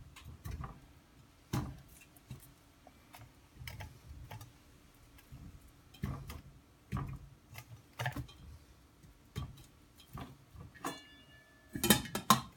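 Scattered light knocks and clicks of ears of corn being packed into a stainless steel pot and handled in a metal colander, then a short ringing metal clink and a clatter of knocks as the lid is set on the pot near the end.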